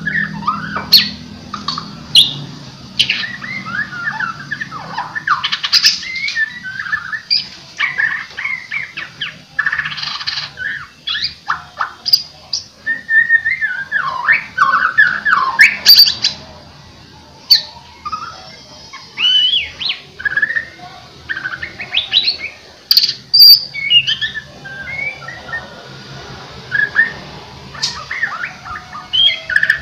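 White-rumped shama (murai batu) singing a fast, varied song of clear whistles, chirps and harsher notes in quick bursts, with a short pause a little past the middle.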